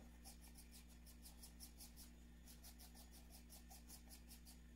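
Small bristle brush sweeping soil off a wild Amanita calyptrata (coccora) mushroom stalk: faint, rapid scratchy strokes, about five a second, with a brief break midway.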